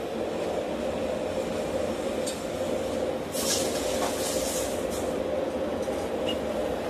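Gas forge burner running with a steady rushing sound, a brief higher hiss about three and a half seconds in, and a few light metal clinks.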